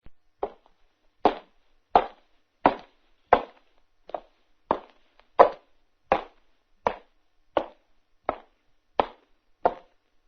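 Footsteps of a person walking at a steady, even pace: about fourteen distinct steps, one roughly every 0.7 seconds.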